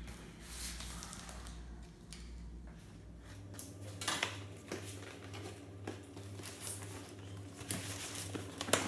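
A cardboard shipping box being opened by hand: a small knife slitting the packing tape, cardboard scraping and flaps rubbing, with scattered taps and knocks as the box is handled and moved, the sharpest near the end.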